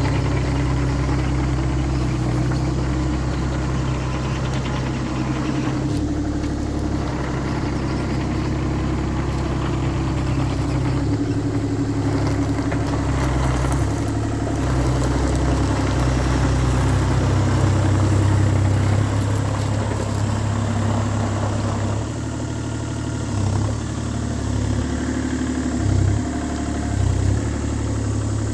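Bobcat E35i compact excavator's diesel engine running steadily. Its note shifts a couple of times, and there are a few short surges near the end.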